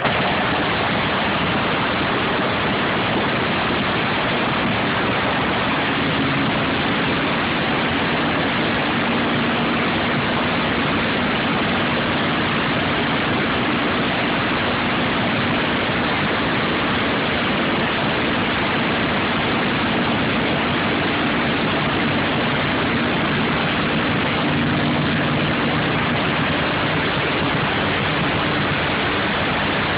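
Land-speed race roadster's engine running steadily at idle, loud enough to swamp the microphone in a dense, even noise with a faint low hum underneath.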